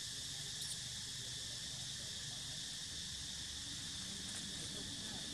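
Steady chorus of insects, such as crickets or cicadas, keeping up an unbroken high-pitched buzz, with one faint click just under a second in.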